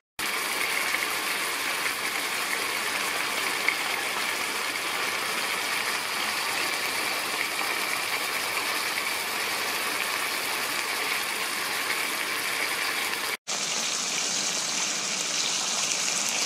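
Pieces of turmeric-and-dill-marinated fish frying in hot oil in a pan: a steady, dense crackling sizzle. It drops out for an instant just after the start and again about thirteen seconds in.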